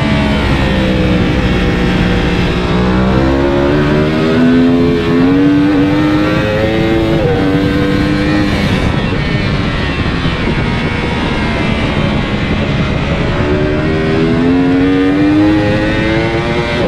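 Yamaha racing motorcycle engine at high revs at speed on a track, with wind rushing past. The pitch sinks for the first few seconds, climbs, drops sharply with a gear change about seven seconds in, then climbs again near the end.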